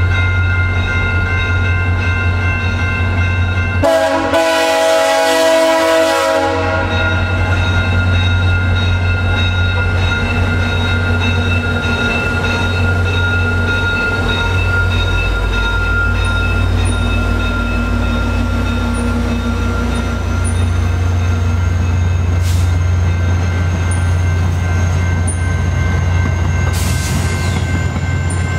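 VIA Rail F40PH-2 diesel passenger locomotive and its coaches passing close by at a level crossing, the engine giving a steady low hum. The locomotive's horn sounds a blast of a few seconds about four seconds in, over the steady ringing of the crossing bell.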